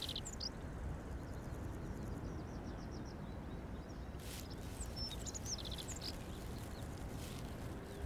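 Natural outdoor ambience: a steady low background hiss with small birds chirping on and off. There are a few quick high chirps in the first second or so and a cluster of them around five seconds in, with a short burst of noise just after four seconds.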